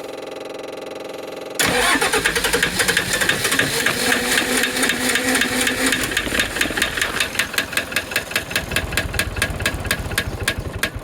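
MEP-803A generator's diesel engine cranking on its starter, then catching about a second and a half in on diesel fuel sprayed into the air intake, firing with a loud, rapid diesel knock. The firing slows and the engine dies near the end: it lights off but won't stay running.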